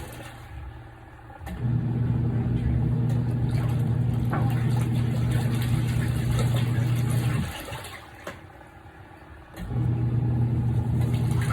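Washer motor of a Kuppet portable twin-tub washing machine running the wash cycle with a steady hum. It runs for about six seconds, stops for about two, then starts again, as the wash tub's pulsator alternates direction.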